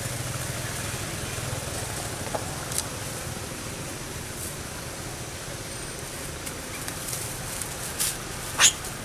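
Steady outdoor background noise with a low rumble, broken by a few short sharp clicks, the loudest one near the end.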